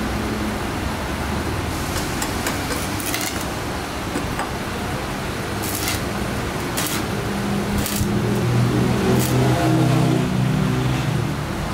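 Stick (arc) welding on square steel tubing: the electrode's arc crackling and sizzling steadily, with sharper spits now and then. A low mechanical hum grows louder in the last few seconds.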